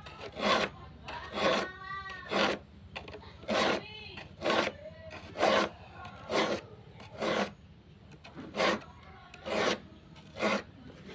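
A file rasping across the teeth of a hand saw, one stroke about every second, sharpening the saw by hand.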